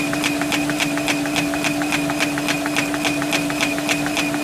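Paper folding machine running, with rapid, even clicking about five or six times a second over a steady hum.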